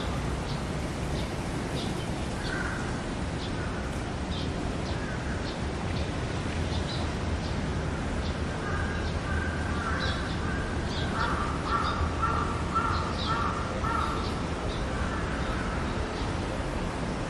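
A crow cawing, with a quick run of about six caws a little past the middle, over a steady low background hum.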